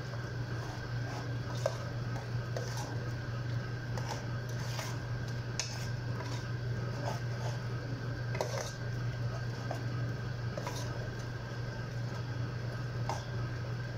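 Metal spoon scraping and clinking against the inside of a stainless steel cooking pot as a thick meat stew is stirred, in scattered, irregular strikes. A steady low hum runs underneath.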